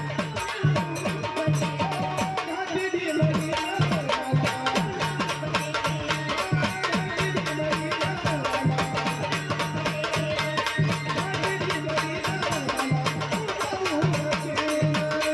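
Folk-style Marathi devotional music with a fast, steady hand-drum rhythm and a melody line over it.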